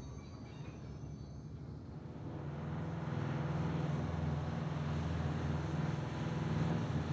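Steady low engine drone of diesel rail-construction machinery, growing louder about two and a half seconds in and then holding.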